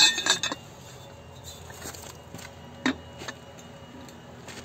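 Steel socket wheel wrench and its pipe extension clinking against the wheel nuts and hub: a quick cluster of ringing metal clinks at the start, then a single sharp knock about three seconds in, with a few lighter taps as the socket is fitted onto a nut.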